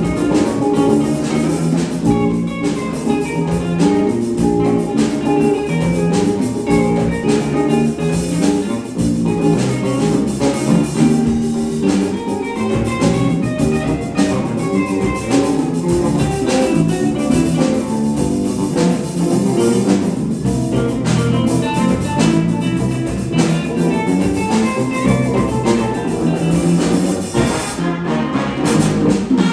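Live funk-jazz band playing a steady groove: electric guitar and electric bass over drum kit and conga drums.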